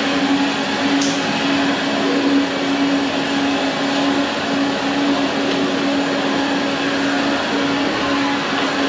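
Steady loud turbine-like roar with a constant low hum, typical of jet aircraft machinery running on an airport apron.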